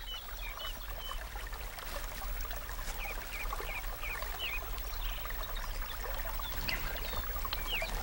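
Forest ambience: small birds chirping in short, scattered calls, more often from about three seconds in, over a steady soft wash of trickling water.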